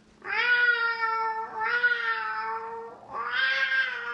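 A woman imitating a cat, yowling in long drawn-out meows at a steady pitch: two calls of over a second each, then a third starting near the end and running on.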